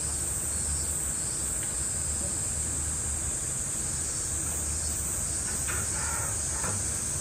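Cicadas droning in a steady, high, continuous buzz over a low steady hum.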